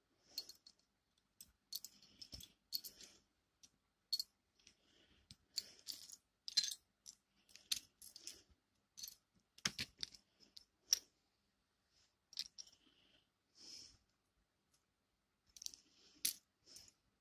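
Loose plastic LEGO pieces clicking and clattering against one another as they are picked through and sorted by hand, in irregular small clicks.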